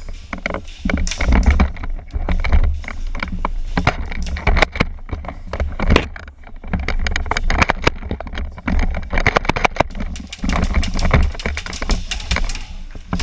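Close-up rustling, knocking and clicking from a player moving quickly through brush with gear, with a steady low rumble of handling or wind on the microphone.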